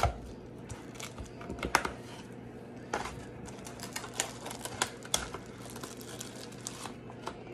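Irregular sharp clicks and crackles of a thin plastic cocktail-shrimp ring tray being handled and pried at, with a few soft knocks against the countertop.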